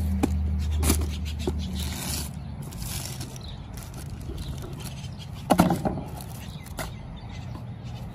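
An LED headlight bulb kit's box and its plastic mailer being handled and opened: rustling with a few clicks and knocks, the loudest a little past halfway. A low steady hum stops about two seconds in.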